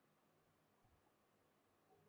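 Near silence: faint recording hiss.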